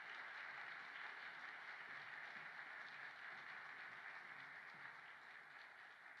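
Audience applauding, a steady patter of many hands that starts to die down near the end.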